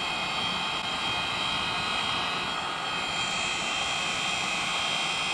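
Heat gun blowing hot air over a freshly ground plastic weld on a polyethylene kayak hull: a steady fan whir with a high whine.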